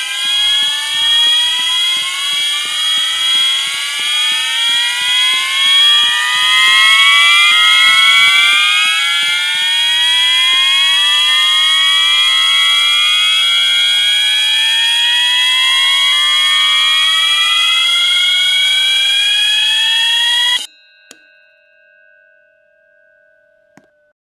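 Fire alarm horns, System Sensor horn strobes and a Wheelock MT set to slow whoop, sounding together. Their repeating rising tones run out of step with each other over a steady high tone and light, regular ticking. About twenty seconds in, all the signals cut off at once, leaving only a faint fading tone and a couple of small clicks.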